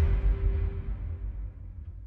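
Tail of a cinematic intro sting: a deep low rumble slowly dying away, with a faint steady tone fading out about halfway through.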